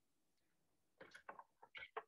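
Near silence, with a few faint short clicks or taps in the second half.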